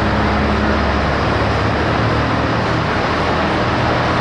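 Modified pulling tractor's engine running steadily at a loud, even pitch while the tractor sits still.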